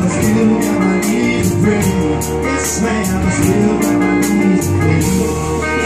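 Live band playing: a resonator guitar with drums, the cymbals struck about two to three times a second until they drop out near the end.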